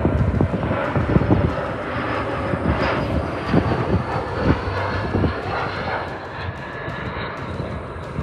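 Airliner engines running with a steady roar and a thin high whine that slowly falls in pitch as the plane passes.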